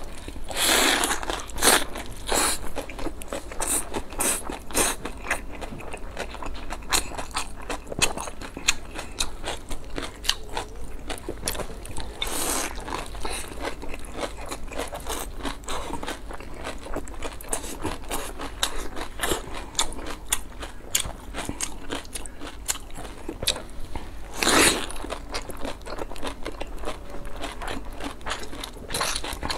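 Close-miked eating: crunchy bites into a fried dumpling followed by steady chewing, with a few louder crunches spread through.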